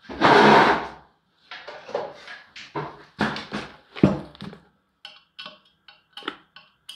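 Hand-tool handling noise: a rattle about a second long, then irregular clicks and knocks of a metal Allen wrench against the screws and steel frame of a disassembled subwoofer, turning to lighter, quicker ticks near the end as the screw is worked.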